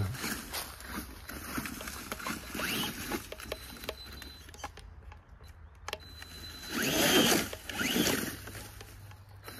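Small off-road vehicle driving over the forest floor: irregular crunching and knocking, with two louder surges near the end.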